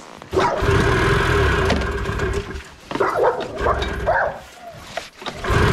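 A dog whining and yipping: a long held whine, then a few short rising-and-falling yips, then another long whine near the end.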